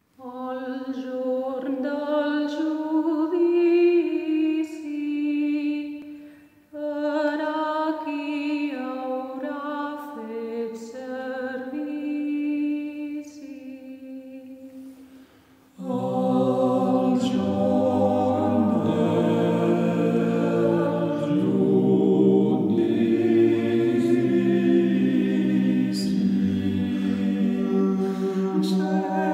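Unaccompanied choral music. A single melodic line with short pauses gives way, about halfway through, to a fuller choir with low voices holding chords in harmony.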